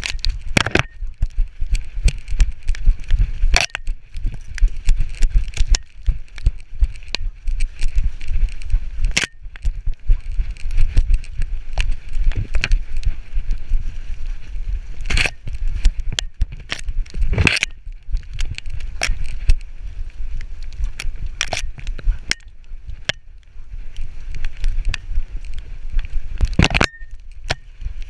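Rumbling handling noise from a GoPro in a dog's back-harness mount as a Labrador retriever moves, broken by many irregular sharp knocks and clicks from the camera and mount jostling.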